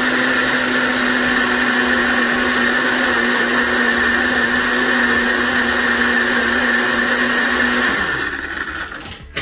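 Bullet-style personal blender running steadily as it purees canned red kidney beans, with a steady hum over a loud whir. About eight seconds in the cup is released and the motor winds down, its hum falling in pitch as it fades.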